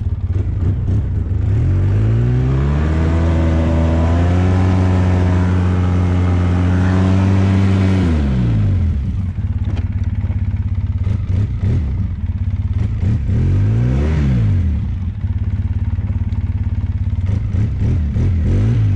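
Polaris Sportsman ATV engine revved hard for about six seconds, then dropping back to idle, with a second shorter rev about two-thirds of the way through, as it strains to pull a heavy sap load through deep snow.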